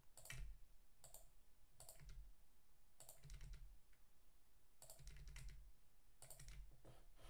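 Faint computer keyboard keystrokes and clicks at uneven intervals, about ten in all, as lines of code are edited.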